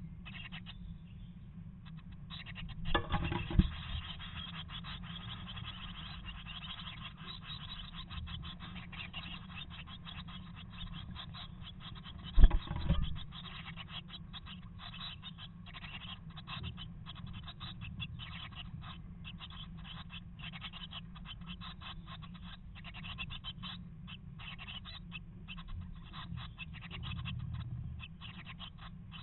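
Tit nestlings shuffling in a wooden nest box: a steady, rapid scratching and rustling of claws and feathers against the nest material and the wood, over a low steady hum. Two loud knocks sound on the box, about three seconds in and again about twelve seconds in.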